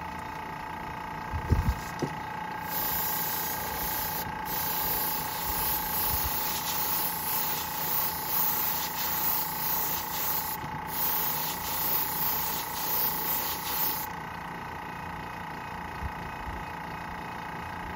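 Airbrush spraying paint: a steady hiss of air from about three seconds in until about fourteen seconds, cut off briefly twice as the trigger is let go, over a constant background hum. A few soft knocks come just before the spraying starts.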